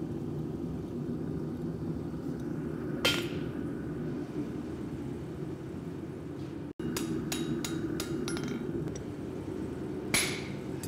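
A hammer strikes a steel maker's-mark stamp held on the hot axe head once, a sharp ringing clank about three seconds in. Later come several light metallic taps, then another ringing hammer blow near the end, all over a steady low drone.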